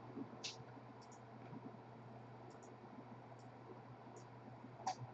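A handful of faint, sparse computer mouse clicks, the one near the end the loudest, over a low steady hum.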